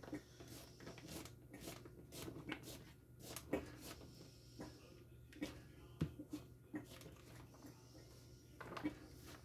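Kitchen knife dicing zucchini sticks: faint, irregular chopping taps.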